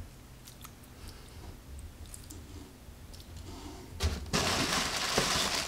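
A few faint clicks as ornaments are handled. Then, about four seconds in, a loud crinkling of packaging starts as ornaments are pulled out of a storage box.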